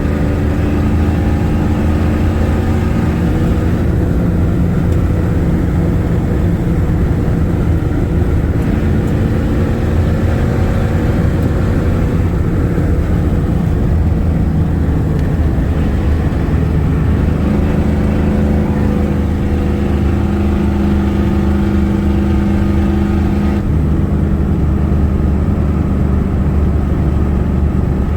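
Ford 6.9 IDI diesel V8 running under way as the truck is driven, heard from the cab with the window open. The engine note steps up and down in pitch every few seconds as the throttle and gears change.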